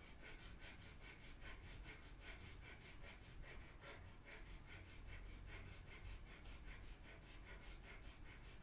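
Faint breath of fire: rapid, even, rhythmic breathing through the nose, with short pumped exhales about three times a second.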